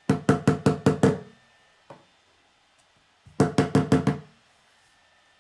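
A plastic K'nex hammer banging on a wooden tabletop as if driving a nail: a quick run of about six knocks, a single lighter knock, then another run of about six.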